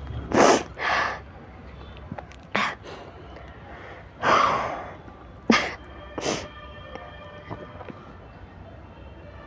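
A woman sneezing and gasping in a fit brought on by chikni powder. There are about six short, sharp bursts of breath, one of them longer, within the first six and a half seconds.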